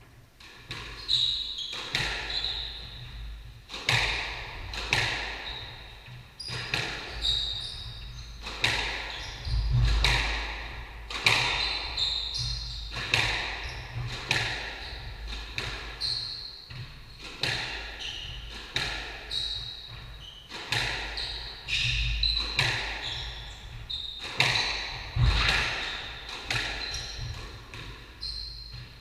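Squash rally: the ball cracking off rackets and the walls about once a second, each hit echoing in the enclosed court, with trainers squeaking on the wooden floor between shots.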